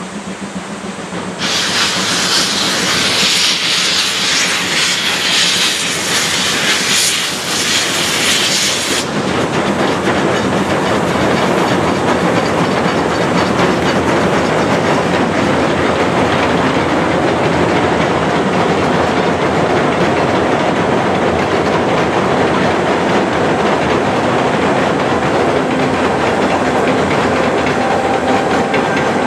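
Steam-hauled passenger train running on the rails with a steady rumble and clatter of wheels. A loud hiss starts about a second and a half in and cuts off about nine seconds in.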